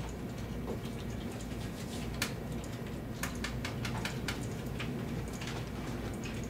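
Scattered clicks of computer keyboards and mice, a few close together in the middle, over a steady low room hum.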